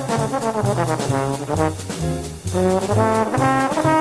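Hard-bop jazz: a trombone playing a solo line of quick, moving notes over an upright bass walking beneath.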